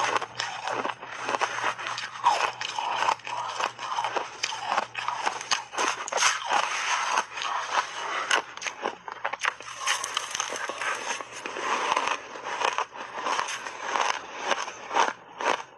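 Crunching of refrozen pink shaved ice chewed in big mouthfuls, with a metal spoon scraping through the ice: a dense, continuous run of crisp crackles and crunches.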